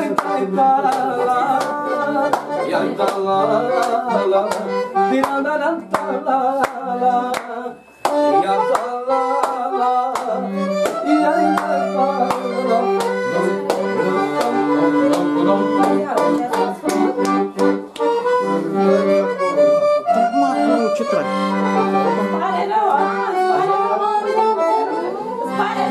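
Accordion playing a fast, busy dance tune over sharp percussive beats. The music drops out for a moment about eight seconds in.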